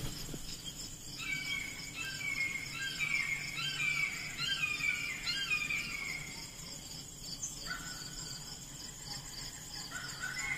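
A steady outdoor chorus of insects trilling high and continuously, with a bird singing strings of short falling whistled notes through the first several seconds and again near the end.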